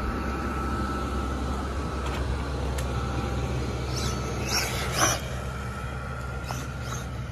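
A steady low engine drone at a constant pitch, with a short high squeal about four and a half to five seconds in.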